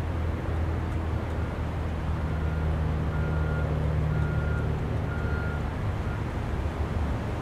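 A steady low engine rumble, with a run of short, evenly spaced high beeps about once a second from about a second in until about six seconds in.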